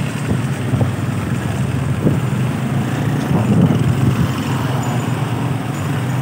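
Street traffic noise with a vehicle engine running close by as a steady low hum, and a few brief knocks.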